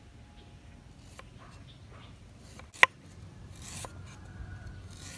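Knife slicing fresh ginger on a wooden chopping board: scattered taps of the blade on the board, one sharp knock a little past the middle, and a brief scraping of the blade.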